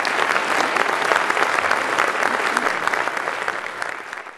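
Audience applauding at the end of a stage tap dance number, fading out near the end.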